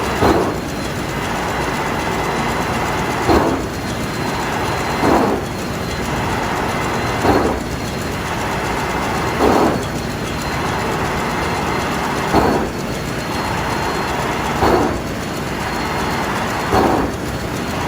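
Ship's main diesel engine turbocharger coughing: steady loud engine-room running with a faint high whine, broken by a short whooshing cough every two to three seconds, eight in all. Repeated coughing like this is typical of turbocharger compressor surge.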